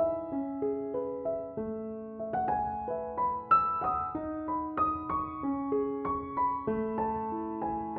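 Background music: a gentle piano melody played note by note, with a new note every half second or so.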